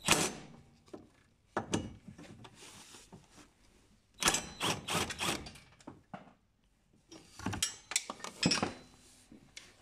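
Ratchet wrench clicking in four short runs as a socket on a long extension turns 10 mm bolts out of an engine bracket.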